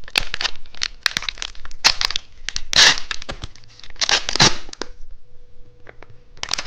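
Plastic wrapper of a two-colour cheese stick snack being torn open and crinkled: a run of short ripping sounds, the two longest about three and four seconds in, then a few faint crinkles.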